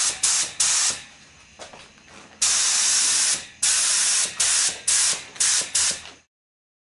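Paint being sprayed onto a car bumper, a loud hiss in on-off bursts: a few short squirts, a pause, one burst of about a second, then five quick squirts. The hiss cuts off abruptly near the end.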